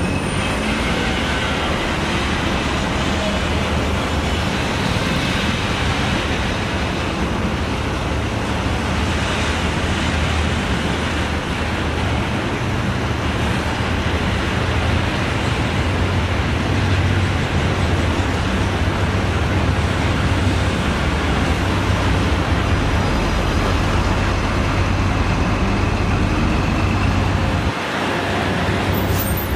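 Busy street traffic: a steady mix of idling and passing road vehicles, with a continuous low engine drone.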